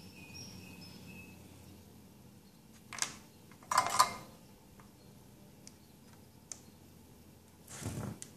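Handling noises of wires and small plugs being worked by hand: a few short clicks and rustles, loudest about three and four seconds in and again near the end.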